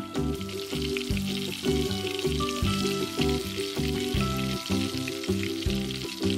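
Hot oil sizzling and crackling steadily as dough-wrapped sausage buns fry in a pan, over background music with a steady beat.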